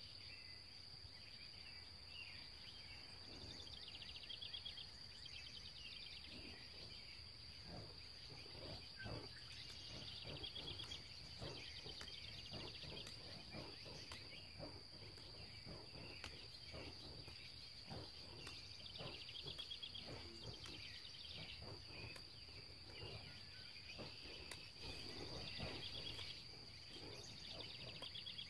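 Quiet outdoor field ambience: a steady high-pitched insect trill with repeated chirping over it and a faint low rumble.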